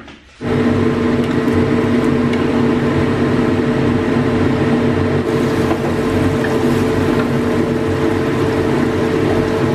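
Blended spice paste frying in hot oil in a pan, a dense steady sizzle over a steady mechanical hum.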